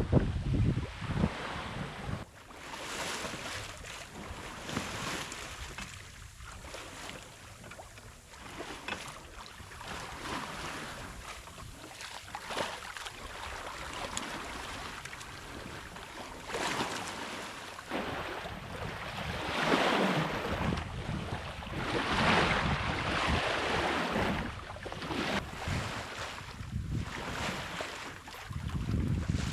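Wind and water rushing past a small sailboat under sail, swelling and easing every few seconds as it moves through the waves, with wind rumbling on the microphone.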